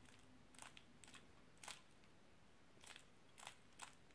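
Qiyi Valk 3 3x3 speedcube being turned slowly by hand, its layers giving faint, short plastic clicks, about eight of them at uneven intervals, as an algorithm is executed move by move.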